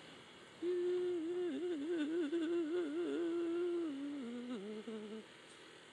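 A man humming a wavering tune. It starts about half a second in, steps down lower near the end and stops about five seconds in.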